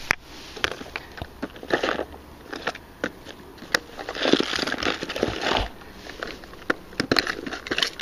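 Close handling noise: rustling, crinkling and scattered clicks as fishing tackle and clothing are moved about on a grassy bank, with a longer stretch of rustling about halfway through.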